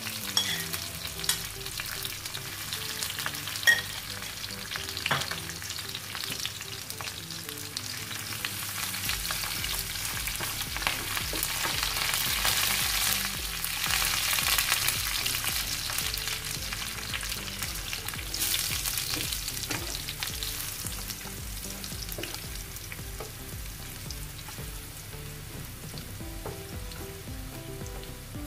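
Garlic, dried red chillies and curry leaves sizzling in hot oil for a tadka, stirred with a wooden spatula. There are a few light knocks in the first few seconds, and the frying grows louder in the middle before easing off.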